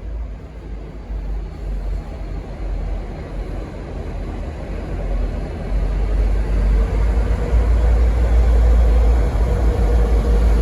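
Diesel locomotive engines running as three coupled N class locomotives move off, a low rumble that grows louder about six seconds in, with a steady tone coming in near the end.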